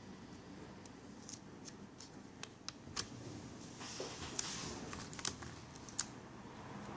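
Scattered small clicks and taps with a brief scraping rustle about four seconds in: hands and tools handling the parts of a Toshiba NB550D netbook during disassembly.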